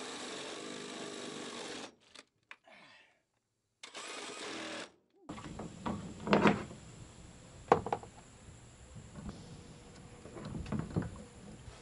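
Cordless drill running steadily for about two seconds as it bores up into the truck's underside, then, after a near-silent gap, a second, shorter run. Then scattered clicks and knocks as pliers work a plastic fitting on a plastic holding tank.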